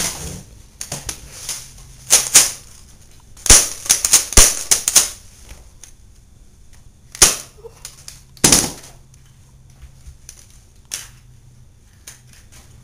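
Toy pistol fired repeatedly: a string of sharp, cap-gun-like bangs at irregular intervals, some in quick pairs, with longer gaps towards the end.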